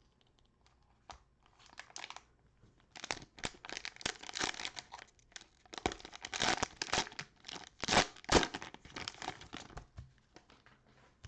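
Cellophane wrapper of a trading-card cello pack crinkling and tearing as it is ripped open. It is a dense run of crackles that starts about two seconds in, is loudest in the later part and dies away near the end.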